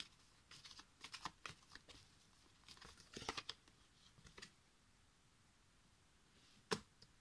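A deck of oracle cards being shuffled by hand: a quick run of faint papery flicks and rustles, and a card laid down on the table. One sharper tap near the end.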